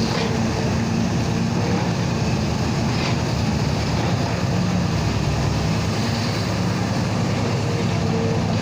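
Crane machinery running steadily while hoisting a load of cement bags: an even mechanical drone with a low hum, its pitch shifting slightly a little past halfway.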